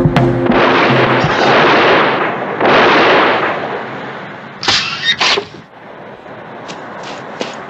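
Film gunfire in a shootout: a sharp shot, then two long bursts of gunfire, then three quick sharp shots a little past halfway, with a few faint clicks near the end. A music cue stops as the first shot sounds.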